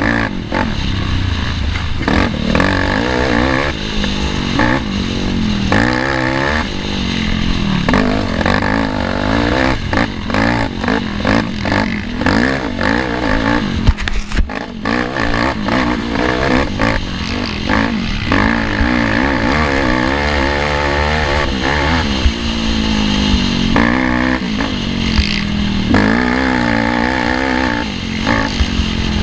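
Racing ATV engine revving hard and dropping off again and again as it is shifted and throttled through the track, with clatter from the machine over rough ground. A sharp knock about halfway through stands out above the engine.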